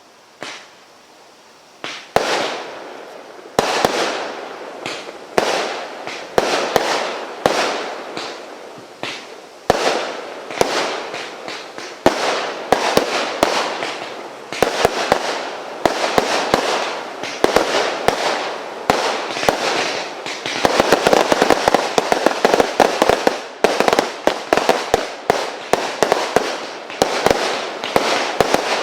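Chaos Theory firework cake, a copy of the Hercules barrage, firing. A single pop about half a second in is followed by a steady run of shots, roughly one or two a second, each bursting and trailing off in crackle. For a few seconds past the middle the shots come much faster and denser.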